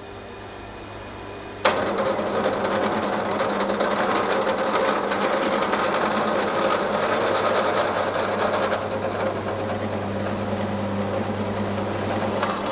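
Pillar drill running, its twist bit boring a long hole through a block of mild steel for a sword pommel. The motor hums steadily at first, then about one and a half seconds in the louder, steady noise of the bit cutting the steel comes in suddenly.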